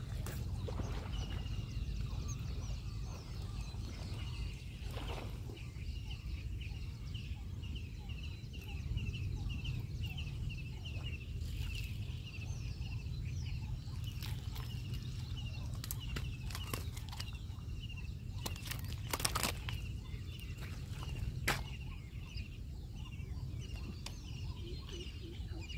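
A bird's short, high call repeated over and over, about twice a second, over a steady low rumble, with a few sharp knocks and clicks scattered through, the loudest two about three-quarters of the way in.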